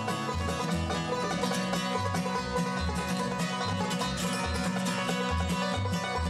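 Bluegrass band playing an instrumental passage without singing: banjo picking leads over mandolin and guitar, with low bass notes alternating at about two a second.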